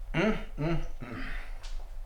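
A person's wordless vocal sounds: two short pitched hums, each rising then falling, followed by a breathy exhale like a sigh.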